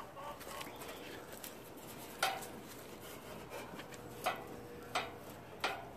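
Four short, sharp knocks with some rubbing between them as a riding mower's hood panel is handled and fitted into place.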